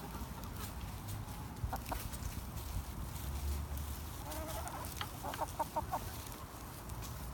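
Backyard hens clucking while they feed, with scattered single clucks and a quick run of about five clucks a little past the middle.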